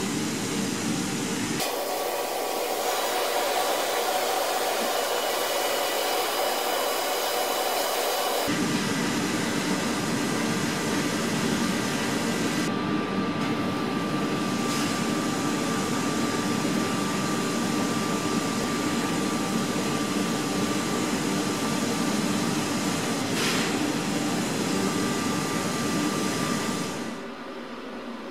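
Steady, loud rushing noise of workshop machinery, air- or motor-driven. It changes character abruptly about two seconds and eight seconds in, and drops away shortly before the end.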